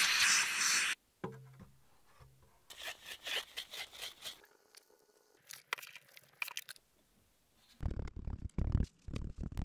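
A compressed-air blow gun hissing steadily, cut off after about a second. Then casting sand rustling and pattering as it is sifted through a metal sieve onto the pattern, and near the end a run of dull thuds as a mallet rams the sand into the wooden flask.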